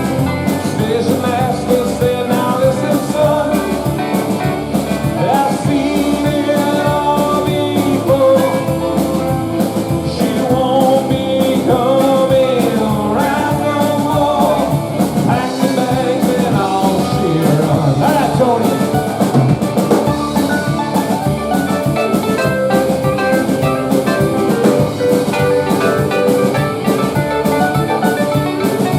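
A live rock band playing, with drum kit, guitar and singing, and a blues feel.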